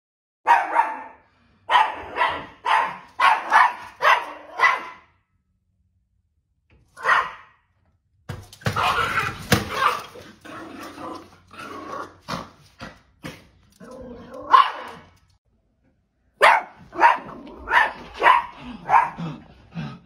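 Small dog barking in runs of short, sharp, high barks, with pauses between the runs.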